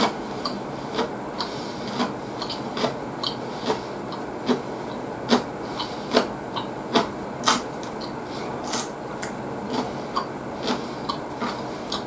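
Close-miked chewing: a person eating, with irregular sharp mouth clicks and soft crunches about once or twice a second over a steady hiss.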